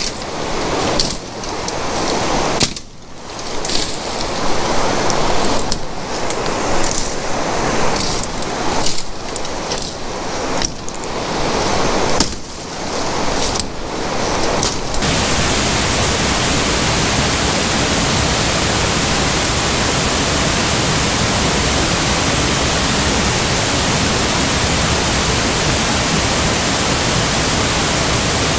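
Undergrowth being cleared by hand: leaves rustling and branches snapping and swishing in irregular strokes. About halfway through this gives way to a steady, even rush of flowing water.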